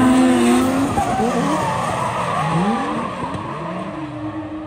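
Several drift cars running in tandem, their engines revving up and down at different pitches over skidding tyres, the sound fading as they move away.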